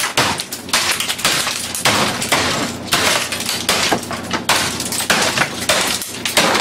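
Plastic computer keyboard being beaten on a wooden desk: a rapid run of hard smashing blows, several a second, with plastic cracking and broken keys scattering.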